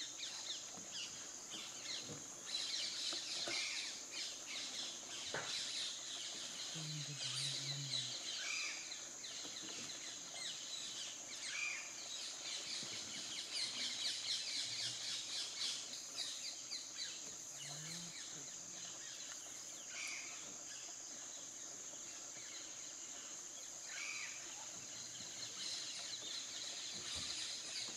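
Forest birdsong: many short bird chirps come and go throughout, over a steady high-pitched hiss, with a few brief low sounds.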